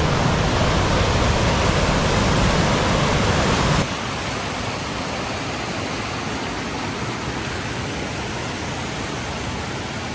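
Steady rushing water of a waterfall and stream, a constant roar. About four seconds in it drops suddenly to a quieter, steady rush.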